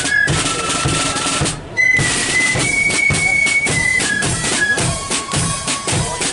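Marching flute band playing: flutes carry a melody in held notes over snare drums and a steady bass drum beat, with a snare roll in the first second or so.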